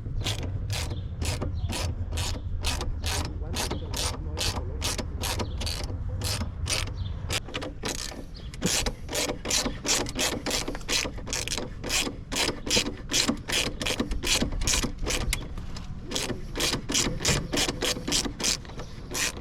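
Hand ratchet with a socket and extension clicking through stroke after stroke on a motorcycle frame bolt, with a rapid run of sharp pawl clicks that comes in uneven bursts in the second half. The bolt is stubborn and not coming off. A low hum sits under the first several seconds.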